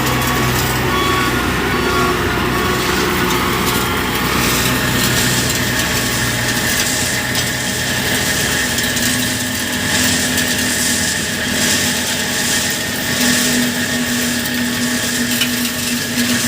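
Heavy diesel machinery running steadily, with a grinding, crushing noise over the engine hum; the low engine hum fades about halfway through and a higher steady tone takes over near the end.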